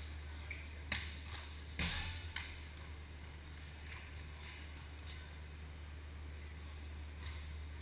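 Volleyball being struck during a rally: a sharp smack about a second in, another a little under a second later and a lighter one just after, over the steady low hum of a large indoor sports hall.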